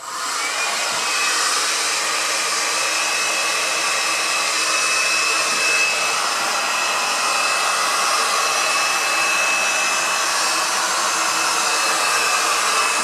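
Handheld heat gun switched on at its maximum setting and running: a steady rush of blowing air with a high fan whine that rises briefly as the motor spins up, then holds steady.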